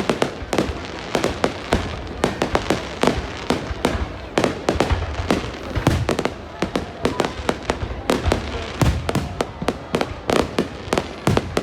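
Fireworks display: sharp bangs and crackles follow one another in rapid, irregular succession, several a second, with deeper booms mixed in.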